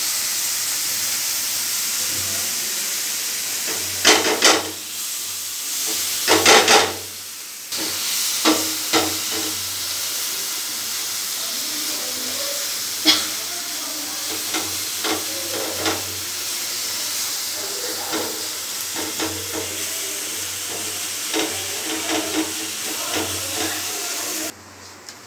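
Chopped onion, tomato and green chilli sizzling in a non-stick frying pan, with the scrapes and taps of a silicone spatula stirring them, the loudest strokes about four and six seconds in. The sizzle drops off sharply near the end.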